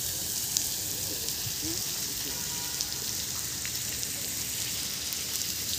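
Garden fountain's jets spraying and falling into the basin: a steady hiss of splashing water.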